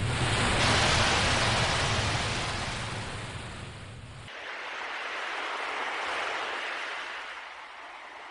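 Sea waves washing in, two slow swells of surf noise one after the other, with a deep rumble under the first that drops away abruptly about four seconds in.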